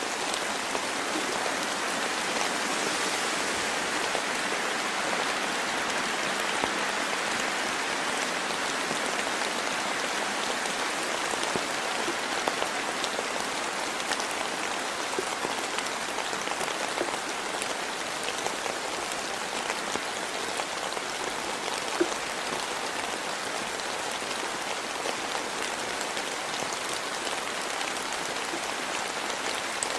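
Steady rain falling in a forest, a continuous hiss with scattered individual drops ticking close by; one drop stands out sharper about three-quarters of the way through.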